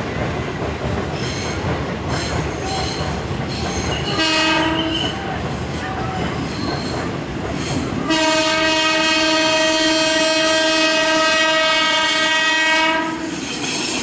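KRL commuter electric train horn: a short blast about four seconds in, then a long, steady blast of about five seconds starting about eight seconds in, the loudest sound, over the rumble and wheel noise of electric trains moving through the junction.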